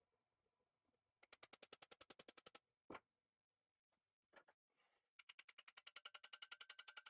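Vintage drill's mechanism turning, giving fast, even clicking, about twelve clicks a second, in two runs with a single knock between them; a faint steady tone rides along with the second run.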